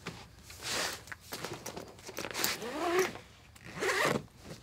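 Zipper pulls and fabric rustling in several short bouts as a packed bag that won't close is forced shut and zipped.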